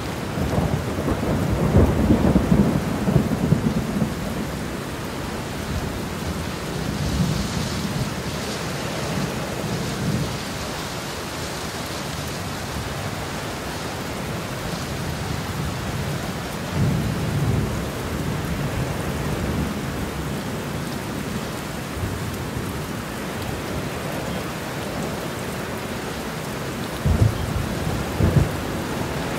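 Thunderstorm: steady rain with rolling thunder. A long rumble comes in the first few seconds, a softer one about halfway through, and two short sharp claps near the end.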